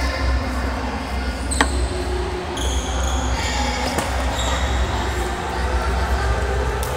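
Badminton being played in a sports hall: one sharp tap of a racket on a shuttlecock about one and a half seconds in, short high squeaks of shoes on the court floor around three seconds in, over a steady low rumble.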